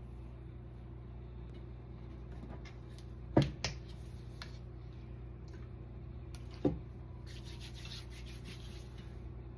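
Tarot cards being handled on a table: two quick sharp knocks a few seconds in, another about three seconds later, then a brief rustle of cards near the end, over a steady low hum.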